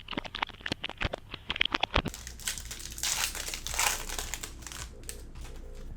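Plastic wrapping of a trading-card blaster box and its packs crinkling and tearing as they are opened: a quick run of sharp crackles, then a longer rustling tear in the middle.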